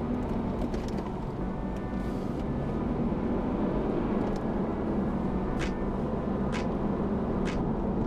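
A car driving, with steady road and engine rumble heard from inside the cabin. In the second half, a light tick repeats about once a second.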